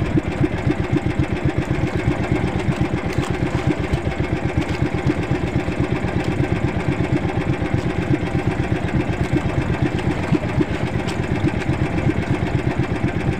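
The small engine of a motorized outrigger fishing boat running steadily, a fast, even pulsing with no change in speed.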